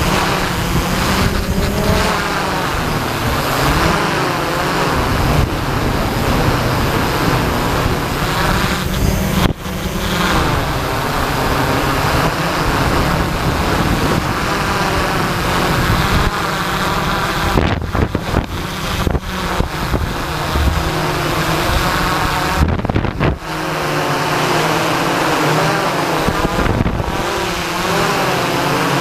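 Multirotor drone's electric motors and propellers buzzing steadily, the pitch wavering as the motors adjust speed, with a few short dips in the sound.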